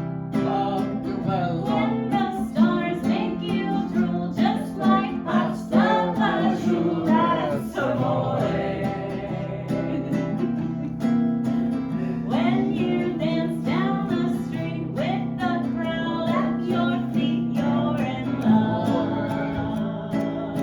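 Singing with strummed guitar accompaniment.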